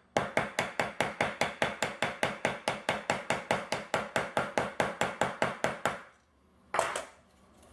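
Quick, even hammer taps on a metal snap setter, about five a second, peening over the post of a line 24 snap through leather resting on a stone countertop. The tapping stops about six seconds in, and one last knock follows.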